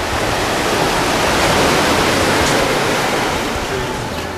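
Ocean surf washing onto a rock breakwater: a steady rush of water that swells over the first couple of seconds and eases off near the end.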